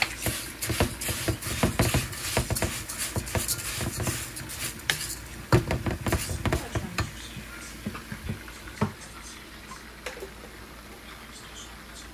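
Cooking utensil scraping and clicking against a pot as food is stirred: a busy run of clicks and scrapes that thins out after about seven seconds to a few scattered knocks.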